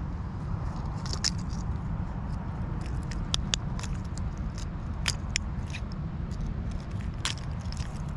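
Metal fishing pliers clicking and scraping against a crankbait's treble hooks as they are worked out of a bass's mouth: several sharp clicks scattered over a steady low rumble.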